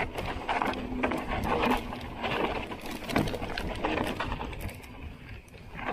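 Hardtail mountain bike descending a rocky, loose trail: tyres crunching and skipping over stones, with irregular knocks and rattles from the bike, over a steady low rumble.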